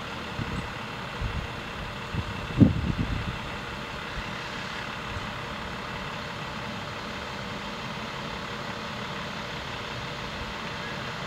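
Steady background rumble and hiss, with a few short low bumps in the first three seconds, the loudest about two and a half seconds in.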